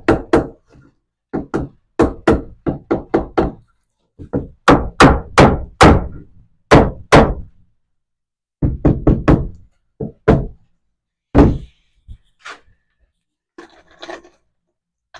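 Hammer blows on lumber, fastening roof truss pieces, in quick runs of several strikes about four a second with short pauses between runs, tailing off to a few lighter knocks near the end.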